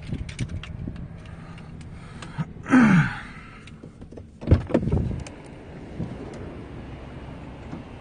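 A car door being handled as someone gets out of a car, with a heavy thump of the door about four and a half seconds in. A shorter noisy sound with a falling pitch comes just before it, about three seconds in.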